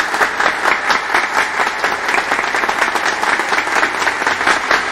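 A crowd applauding, steady dense clapping.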